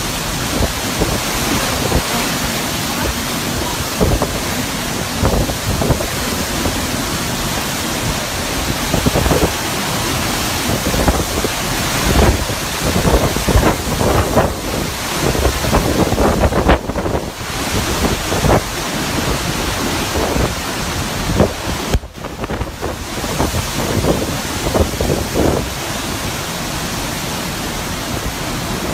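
Hurricane-force wind and driving rain, a dense steady rush with irregular gusts buffeting the microphone in rumbling surges, strongest around the middle.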